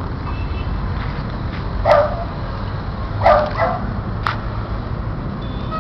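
Beagle puppy giving three short barks: one about two seconds in, then two in quick succession about a second later, followed by a sharp click.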